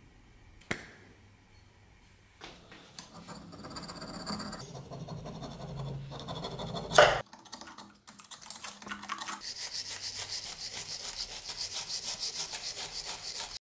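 Metal scraping on the steel base of a small anvil as old epoxy glue is scraped off, first with a knife blade, with a sharp metal knock about seven seconds in. After that comes a run of quick, even back-and-forth scraping strokes, several a second, from a small hand tool.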